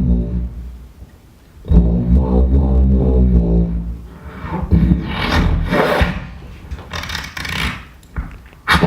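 Beatboxers making sound effects with their voices: low droning tones that stop briefly about a second in and come back loud, then a run of breathy hissing and scraping noises, with a sharp click near the end.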